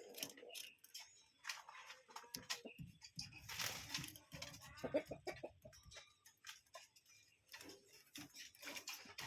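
A bird making soft, short clucking calls among scattered clicks and light rustling, loudest about halfway through.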